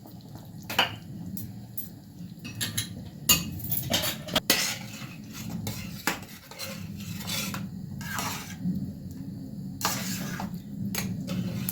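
A spoon stirring a pot of stew, scraping and clinking against the pot at irregular moments, over a steady low hum.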